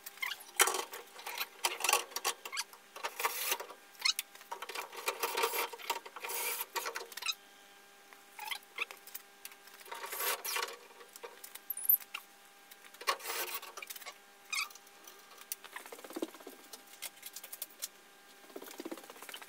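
Scattered clattering, scraping and rustling of a car radiator being handled into its new brackets and bolted in, in irregular short bursts with quieter gaps, over a faint steady hum.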